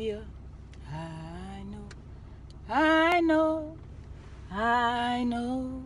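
A woman singing a gospel chorus, drawing out three long held notes with a slight waver in pitch, without clear words, over the steady low rumble of a car cabin.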